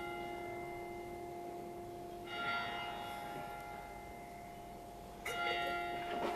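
A church bell tolling: single strokes about three seconds apart, each one ringing on and slowly fading under the next.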